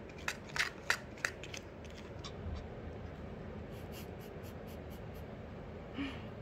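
Plastic treat jar clicking and scraping on the floor as a Pomeranian noses and paws at it, a few sharp clicks in the first second and a half. Near the end the dog gives one short mumble.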